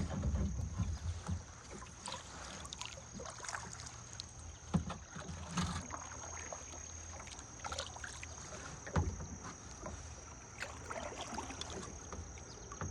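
Kayak paddle strokes: the blades dip and splash in river water, with scattered drips and a few sharp knocks, the loudest about nine seconds in.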